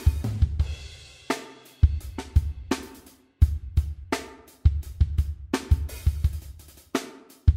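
Backing music: a drum-kit beat with kick, snare, hi-hat and cymbals. It stops and restarts abruptly several times.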